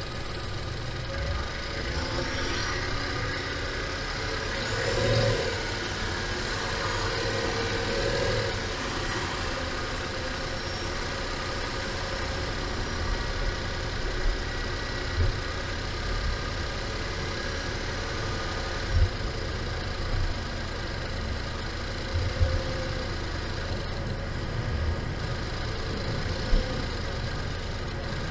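Car driving along a snow-covered road, heard from inside the cabin: a steady hum of engine and tyres, with a few brief low thumps from bumps in the road in the second half.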